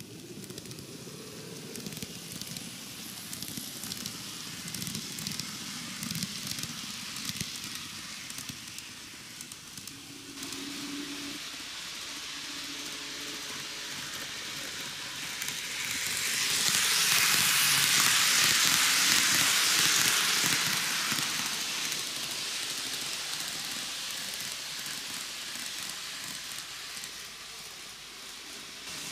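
TOMIX N-gauge model train running on plastic track: a steady hissing, crackly rattle of the small wheels and motor, with a low rumble in the first several seconds and a louder hissing stretch for about five seconds past the middle.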